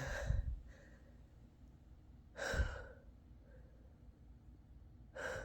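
A sick person's breathing: three audible sighing breaths, about two and a half seconds apart.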